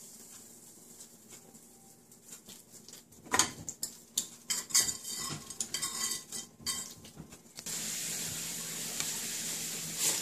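Kitchen utensils clicking and clinking against dishes in quick irregular knocks, then about seven and a half seconds in a steady sizzle starts as pancake batter cooks on the hot surface.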